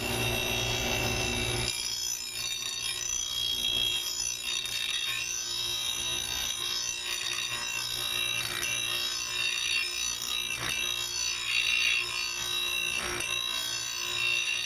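A grinding wheel grinding the steel of a lawnmower blade's heavy end, a steady rasp. Metal is being taken off the heavy side to balance the blade.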